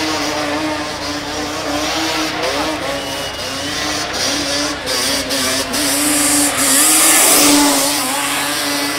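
Sport quad (ATV) engine revving up and down during wheelie stunts on asphalt. A rushing hiss swells about two-thirds of the way through and is loudest near the end.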